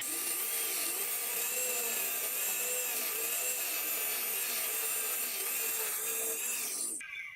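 Wood being turned on a homemade lathe: a tool cutting or scraping the spinning workpiece gives a steady hissing rasp, with a faint whine that wavers in pitch. It cuts off suddenly near the end.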